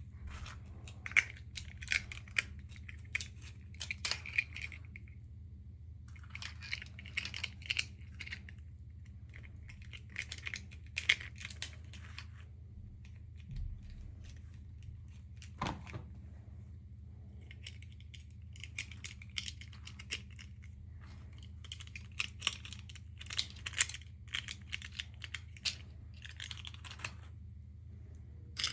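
Packaging crinkling and tearing in bursts of a second or two, mixed with sharp clicks of small plastic pieces being handled, over a steady low hum.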